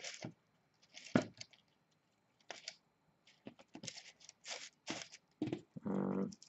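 Dry shredded wood (excelsior) being packed by hand into a plastic deli cup: short bursts of scratchy rustling and crackling, with a sharper knock about a second in.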